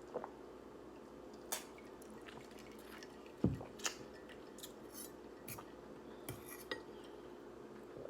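Close-up eating of instant ramen noodles: scattered light clicks and taps of a utensil against a dish, with wet eating sounds and one heavier thump about three and a half seconds in, over a faint steady hum.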